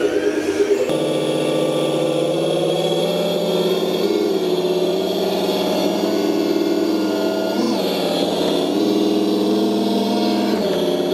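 Simulated truck engine sound from an RC sound-system speaker in a Tamiya Unimog 425 model truck, running steadily at idle, with a short rev about eight seconds in.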